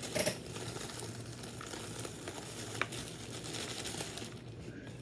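Close rustling and crinkling of food being handled and dipped, loudest right at the start, with a few sharp clicks.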